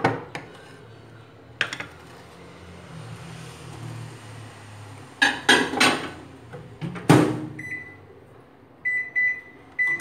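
Spoon knocking on a glass baking dish, then handling noise as the dish goes into a microwave oven and the door shuts with a loud clack about seven seconds in. A string of short electronic beeps follows from the microwave's keypad as it is set.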